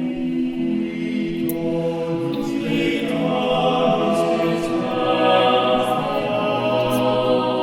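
Choral music: a choir singing slow, held chords, with higher voices coming in about three seconds in.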